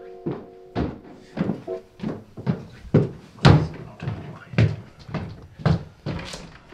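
Footsteps striding along a hallway, a steady run of thuds about two a second.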